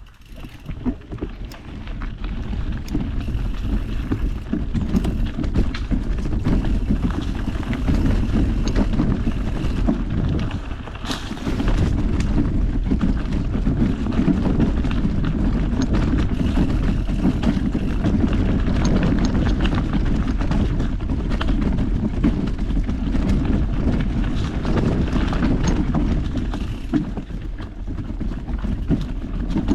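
Mountain bike rolling over a rough dirt trail, heard from a GoPro riding along: a steady rumble of tyres and wind buffeting the microphone, full of the bike's clicks and rattles over roots and rocks. It eases off briefly about ten seconds in.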